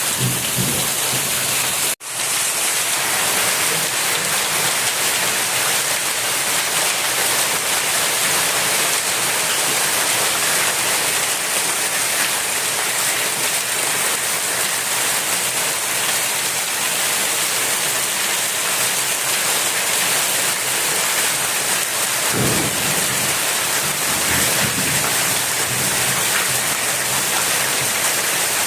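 Heavy rain pouring steadily in a storm, with a brief sudden cut-out about two seconds in and low rumbles a little past two-thirds of the way through.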